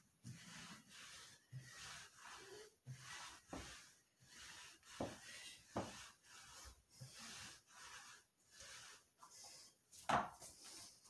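Ab roller wheel rolling and rubbing on a foam exercise mat during rollouts, in short repeated strokes. A sharper knock comes near the end.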